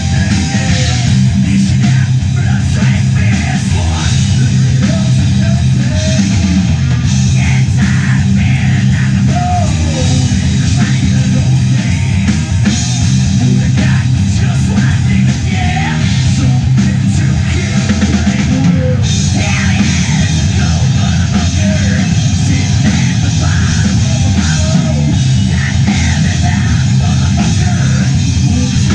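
Live rock band playing loud: electric guitar and drum kit.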